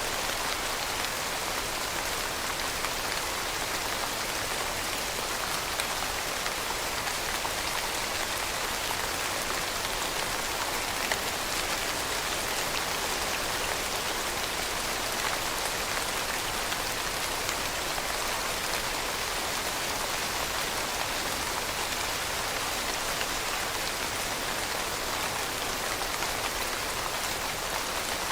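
Steady rainfall, dense drops pattering on a surface, an even hiss with fine scattered drop ticks and no thunder.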